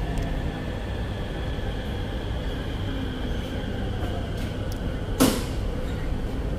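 Purple Line electric metro train running, heard from inside the carriage: a steady rumble with a faint steady high whine over it. A single sharp knock sounds about five seconds in.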